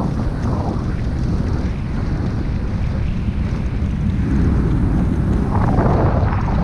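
Wind buffeting a GoPro's microphone as it moves along at running pace: a loud, steady low rumble.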